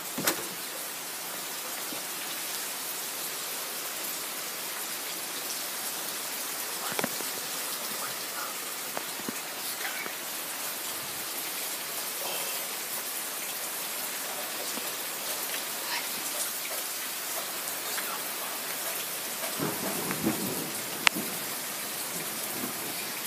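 Heavy rain falling in a steady hiss, with a few sharp drip or drop taps standing out, one about 7 s in and another near the end.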